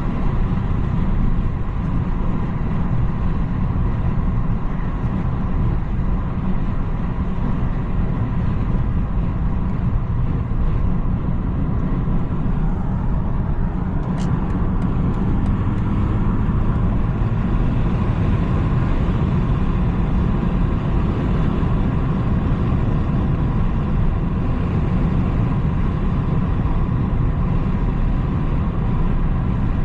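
BMW 330i (G20) on the move: its turbocharged four-cylinder engine and tyre noise make a steady, low rumble that holds even without revving up or down.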